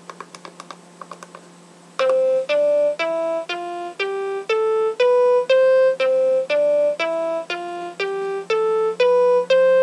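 Bliptronic 5000 LED sequencer synthesizer: a few faint clicks as its grid buttons are pressed, then from about two seconds in a looping eight-step pattern of short electronic notes, about two a second, stepping up a C major scale and starting over.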